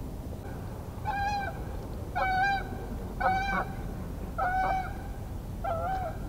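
A large waterfowl honking five times, one call about every second, each a short nasal honk.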